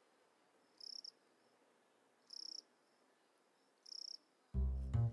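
Cricket chirping, three short high chirps about a second and a half apart over an otherwise quiet background. About 4.5 s in, a loud, deep, pitched note cuts in suddenly and is the loudest sound.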